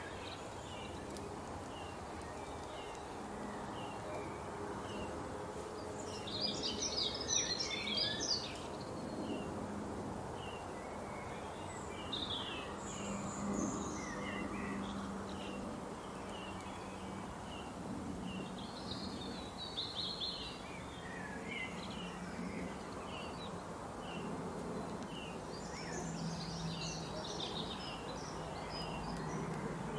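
Several small birds chirping and singing, with short calls repeating throughout and a few busier bursts of song, over a steady low hum.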